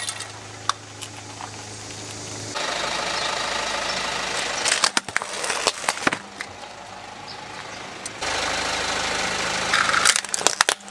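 Car engine idling steadily, its level stepping up abruptly twice. Near the end there is a burst of sharp cracks as a small plastic toy dump truck breaks under the car's tyre.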